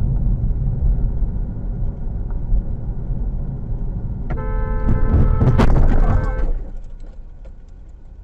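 A heavy vehicle rumbling loudly. About four seconds in, a steady high blaring tone joins for about two seconds, with a sharp crack in the middle of it. After about six and a half seconds the rumble dies down.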